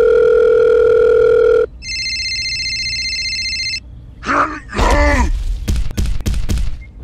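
Telephone sound effects: a loud steady beep, then a higher electronic ringtone held for about two seconds. About four seconds in, a short cartoon voice cry follows, then a few sharp knocks.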